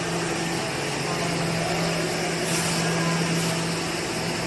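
Steady machinery hum: an even low drone with a hiss over it, holding constant with no breaks.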